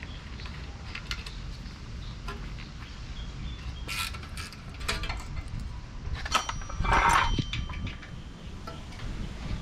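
Scattered clicks and clinks of hand tools and small metal hardware being handled, with a louder, half-second noisy sound about seven seconds in, over a low steady rumble of wind.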